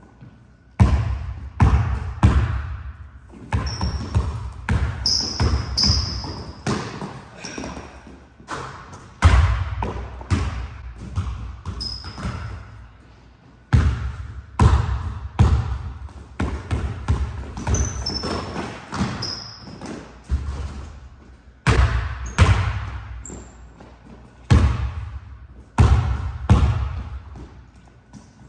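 A basketball dribbled hard on a hardwood court, in runs of quick bounces broken by short pauses, with short high squeaks of sneakers on the wooden floor.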